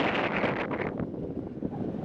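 Wind rushing over the microphone of a moving motorcycle, with a low rumble underneath; the rush eases off about a second in.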